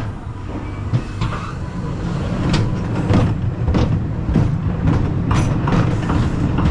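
Wooden shuttle roller coaster train rolling slowly along its wooden track into the station: a steady low rumble of the wheels with sharp clacks about every half second or so from partway through.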